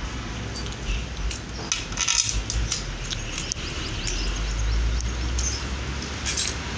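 Steel bolts clicking and clinking against a metal mounting bracket as they are fitted through it by hand, in scattered light ticks with a louder scrape about two seconds in, over a low rumble.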